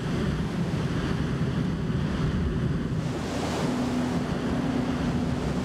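Steady rush of wind on the microphone and sea water washing past the hull of a 60-foot open racing sailboat under sail, heaviest in the low end. A faint steady hum joins about two-thirds of the way through.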